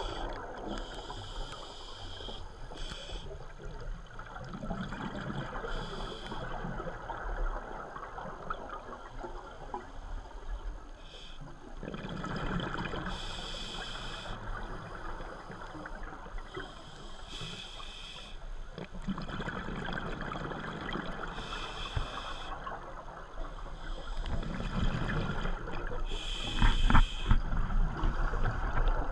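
Scuba diving underwater: a diver breathing through a regulator, with hissing bursts of exhaled bubbles every few seconds over a steady low rumble of water.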